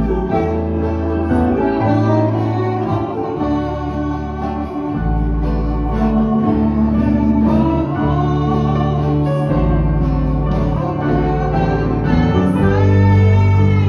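Small band playing a gospel song on accordion, electric guitar and acoustic guitar, with a woman singing over it.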